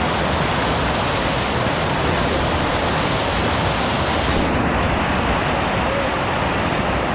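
Steady rushing of flowing water, an even hiss with no distinct events; its highest hiss drops away about four and a half seconds in.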